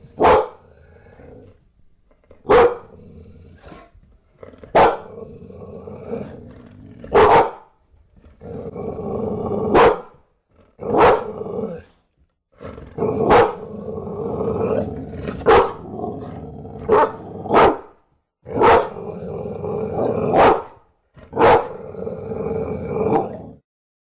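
Bulldog growling in long low rumbles broken by about a dozen short, loud barks, one every second or two.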